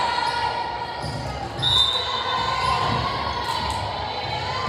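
Volleyball match in an echoing school gym: a continuous wash of crowd noise, with a brief high-pitched tone about a second and a half in and a couple of sharp ball-hit knocks later on.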